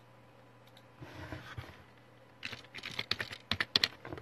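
A quick run of about a dozen sharp clicks, typing on a keyboard, starting about halfway through after a faint low rustle.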